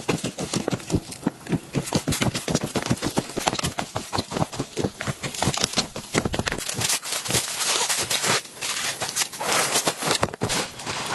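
Blizzard wind buffeting a snow camp: a dense, irregular rattle of rapid cracks and flutters over a gusty low rumble. The rumble drops away for a couple of seconds about seven seconds in.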